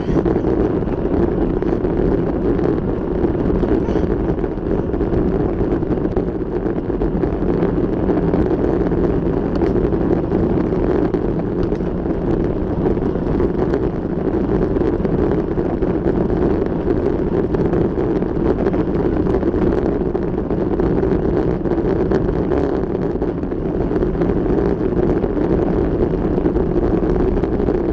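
Steady wind rush buffeting the microphone of a camera riding on a moving vehicle, over the even running noise of the vehicle.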